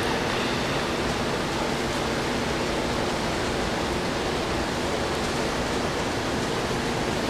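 Steady, even hiss with a faint low hum underneath; no distinct sounds stand out.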